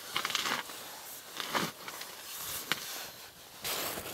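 Scattered rustling and scraping handling noises, with one sharp click nearly three seconds in.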